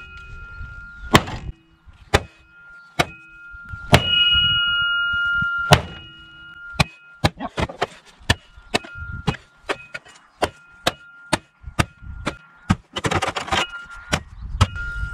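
Repeated blows of a Cold Steel pole axe's carbon-steel hawk head into a Volkswagen car's sheet-metal body. The first half has sharp whacks about a second apart, each followed by a short metallic ringing tone. After the midpoint the hits come faster and lighter, and a short noisy burst follows near the end.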